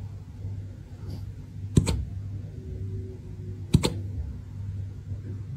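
Golden retriever puppy hiccuping: a sharp double click about every two seconds, twice, over a steady low hum.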